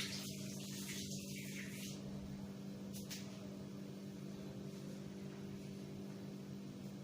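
A steady low electrical-sounding hum with a faint hiss, and a single faint click about three seconds in.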